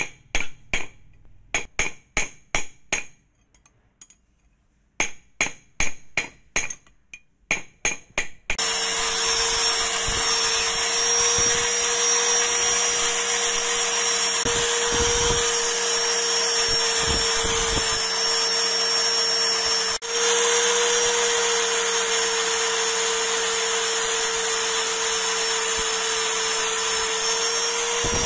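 A small hammer striking a rusty steel screwdriver shaft laid across a sledgehammer head used as an anvil: two quick runs of sharp metal blows with a short pause between them. About eight and a half seconds in, an angle grinder with a flap disc starts and runs steadily, grinding the rust off the shaft.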